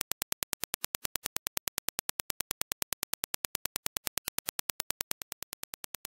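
Rapid, evenly spaced train of sharp clicks, about eight a second: Dirac impulses played as a headphone test signal, first the reference impulse. A little past five seconds in the clicks turn quieter as the Corsair Virtuoso Pro headphone's reproduction of the impulse takes over.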